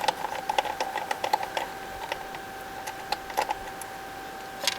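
Light metallic clicking as a nut is worked loose from a generator's air-filter cover: a quick run of clicks for about a second and a half, then a few single clicks. A faint steady tone runs underneath.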